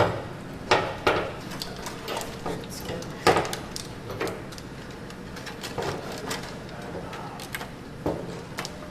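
Scattered knocks and clunks of parts being handled while a washing machine component is slid back into place during repair, the loudest knock about three seconds in.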